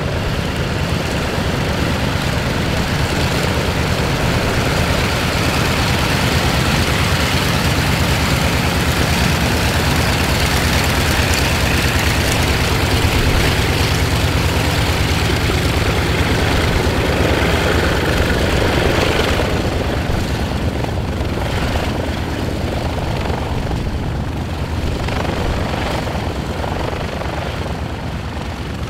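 Vought F4U Corsair's Pratt & Whitney R-2800 eighteen-cylinder radial engine running at taxi power as the fighter rolls past, loudest around the middle and fading somewhat after about twenty seconds as it moves away.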